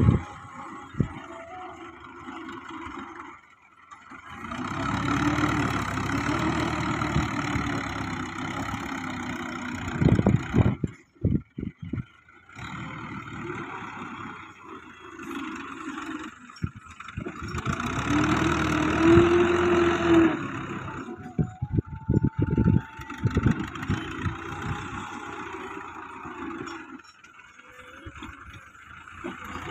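Fiat 640 tractor's diesel engine working under load, revving up and holding high revs twice, about four seconds in and again past the middle, between stretches of lower running, with some knocks from the blade and implement.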